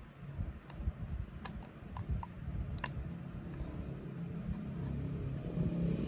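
Small plastic clicks and rubbing as a cracked plastic electric-fan switch case is pressed and held together in the hands, while its glued pieces set. A low rumble builds steadily toward the end.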